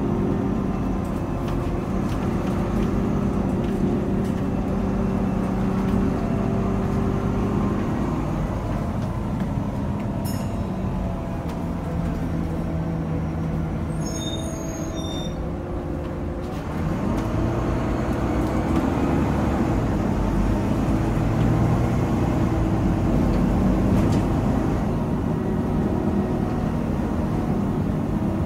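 Bus engine heard from inside the passenger saloon, with a slight cooling fan noise. The engine note sinks as the bus slows, then grows louder and rises from about halfway as it pulls away. A short stop-bell chime sounds near the middle.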